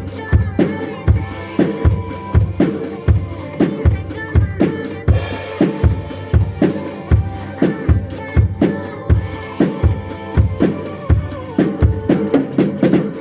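Drum kit played along with a pop backing track: a steady bass drum about twice a second, with snare and cymbal strokes on top. The drumming breaks off at the very end, leaving the recorded song.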